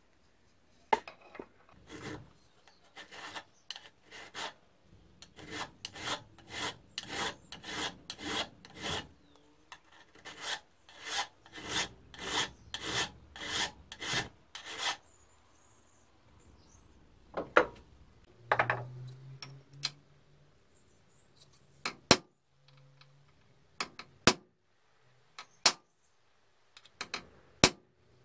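Hand file rasping back and forth across the jaws of a Stanley 742 mini clamp-on vice, at about two to three strokes a second with a short pause midway. The filing then stops and is followed by a few sharp metal clicks.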